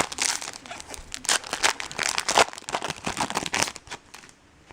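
Foil card-pack wrapper crinkling and tearing as a pack of trading cards is handled and opened, with rustling strokes that die away about four seconds in.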